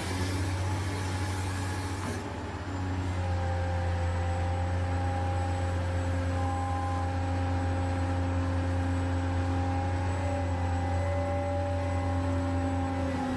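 Hydraulic RC excavator's pump running steadily under load as the arm and bucket move, a low hum with a few held whining tones that shift as the controls change. A hiss over the first two seconds cuts off suddenly.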